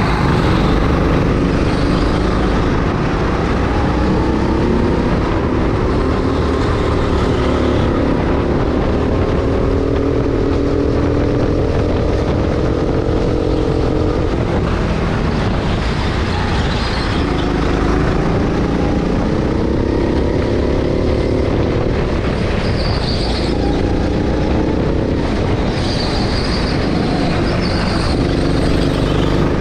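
Go-kart engine heard on board, its pitch climbing for several seconds along the straights and dropping off into the corners, over a steady low rumble.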